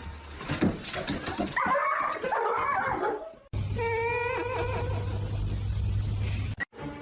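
A dog whimpering and yipping, with a few knocks in the first seconds. After a sudden break about halfway, a wavering whine is held over a low hum.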